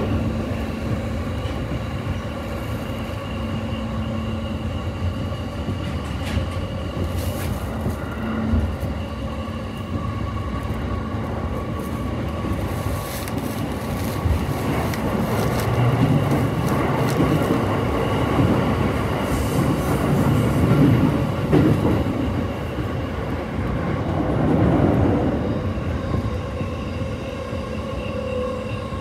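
Rail running noise heard inside a passenger train car as it runs beside a JR Freight container train on the next track: a steady rumble of wheels on rails with a few steady whining tones over it. The rumble swells louder a few times in the second half.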